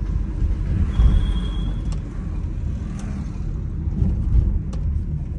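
A car's engine and tyre rumble heard from inside the cabin as it creeps through slow traffic, a steady low drone. A brief thin high tone sounds about a second in, and there are a couple of faint clicks.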